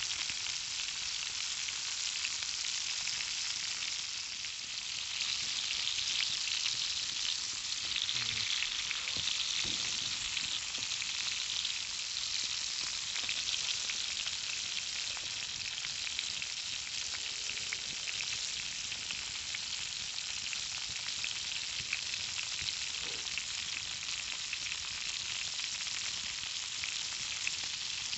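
Conecuh smoked sausage links sizzling in a cast iron skillet over a campfire: a steady frying hiss full of fine crackling and spitting, swelling a little from about five seconds in before settling back.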